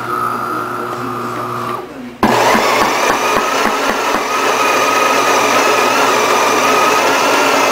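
De'Longhi Magnifica espresso machine running as it makes a shot: a steady motor whine for about two seconds, then after a short break a louder, steady whirring hiss.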